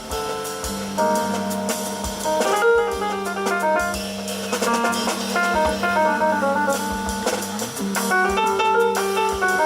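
Jazz piano trio playing live: quick runs of piano notes over bass and drum kit, with cymbals struck throughout.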